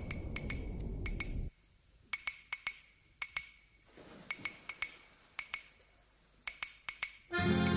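Road and engine noise inside a moving car, a steady low rumble that cuts off suddenly after about a second and a half. Then near quiet with a series of short, sharp clicks, about two or three a second in irregular clusters, and accordion music starting near the end.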